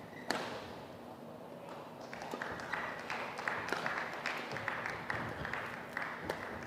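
Badminton rally getting under way about two seconds in: sharp racket hits on the shuttlecock mixed with the players' shoes squeaking on the court as they move.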